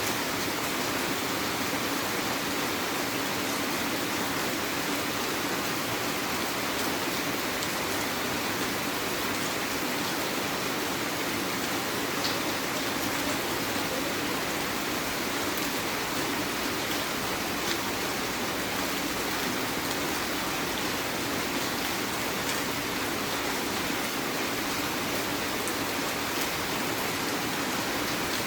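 Heavy rain falling steadily, an even hiss that does not change in loudness, with a couple of faint drop ticks.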